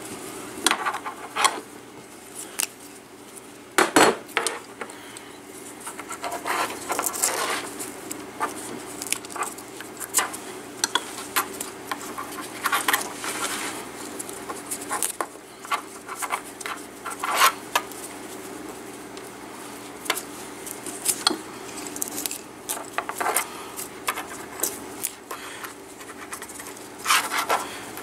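Paracord being picked apart and pulled free from a woven knife-handle wrap: scattered clicks and taps of a thin metal pick against the cord and handle, with short rustles of cord rubbing and sliding. The sharpest click comes about four seconds in.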